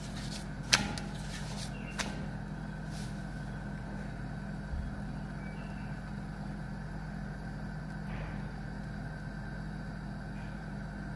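A slotted spatula knocks sharply against a griddle pan twice near the start while a chapati is turned on it, the first knock the loudest sound. Under it runs a steady low hum.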